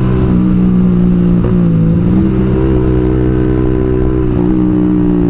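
Suzuki GSX-R150's single-cylinder engine through a WRX New GP K2 racing exhaust with a 30 cm silencer, pulling along at steady, light throttle. The pitch dips briefly about a second and a half in, then comes back up.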